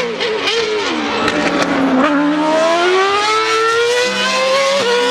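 Formula 1 race car engine at high revs. Its pitch drops over the first two seconds, then climbs steadily again.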